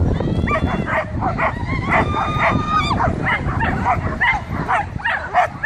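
Several excited flyball dogs barking rapidly and shrilly, several barks a second without a break, with a long drawn-out high whine held for about a second near the middle.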